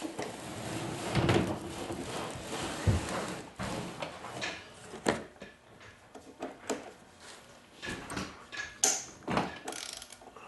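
Irregular knocks, clicks and short scrapes of tools and small blower parts being handled on a work table, as the carburetor is being taken off.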